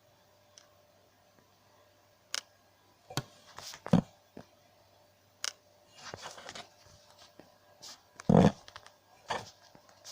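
Irregular knocks, clicks and short scrapes of objects being handled, loudest about four seconds in and again after eight seconds, over a steady low hum.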